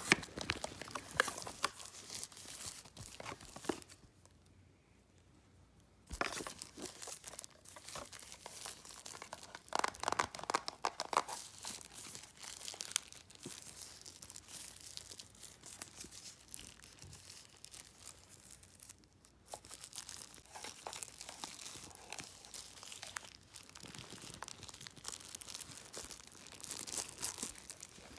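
Packaging being handled while a label maker is unboxed: a cardboard box opened and paper and plastic wrapping crinkled, rustled and torn in short, irregular bursts. It stops dead for about two seconds, around four seconds in.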